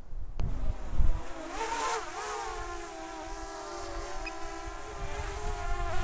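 DJI Mavic Air drone's propellers whining as it comes back in to land. The pitch dips about two seconds in, then holds steady. Gusts of wind rumble on the microphone underneath.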